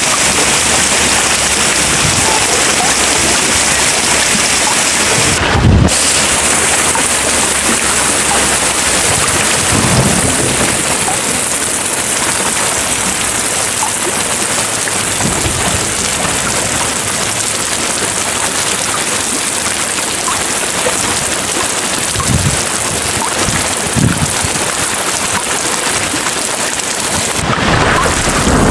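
Steady heavy rain, a dense even hiss, with a few short low thuds spread through it.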